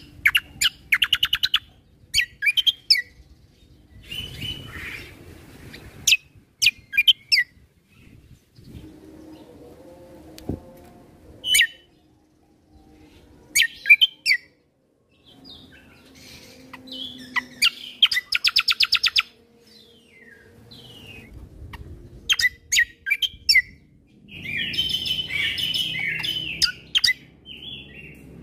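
Kecial kombo (cucak kombo) songbird singing loud bursts of sharp chirps and rapid high trills, with short pauses between phrases and a stretch of dense chattering near the end.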